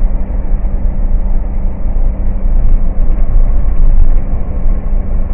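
Car driving at speed on a bare concrete road, heard from inside the cabin: a steady, loud tyre and engine rumble.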